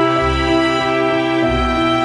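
Slow ambient background music of sustained chords, the chord changing about one and a half seconds in, over low bass notes.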